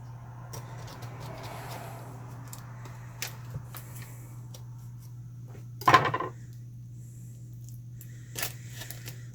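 A plastic ricotta tub being opened with a knife: faint scraping and scattered clicks, with one sharp knock about six seconds in. A steady low hum sits underneath.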